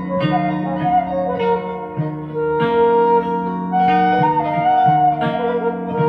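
Background instrumental music: plucked guitar notes under a held, sliding woodwind melody.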